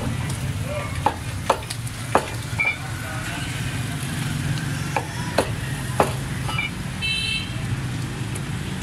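Butcher's cleaver chopping chicken on a wooden chopping block: about half a dozen sharp, irregular chops over a steady low hum and background chatter. A short high toot sounds about seven seconds in.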